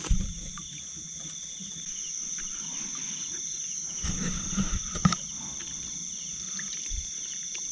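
Insects chirring steadily in an even high-pitched drone, with a few soft knocks near the middle.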